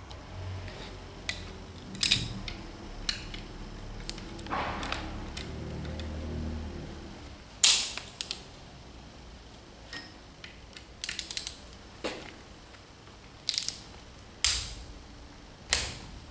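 Ratcheting torque wrench clicking as nuts are run down onto the studs of a plunger pump housing, with scattered sharp metallic clicks and clinks of tools and parts and a quick run of ratchet clicks about eleven seconds in.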